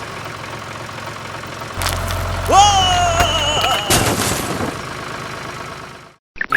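Dubbed engine sound of a toy tractor: a low steady rumble that starts about two seconds in, with a short gliding, cartoon-like vocal call over it. It fades out near the end.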